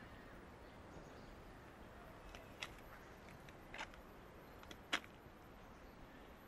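Near silence: a faint steady background hiss with four brief clicks between about two and five seconds in.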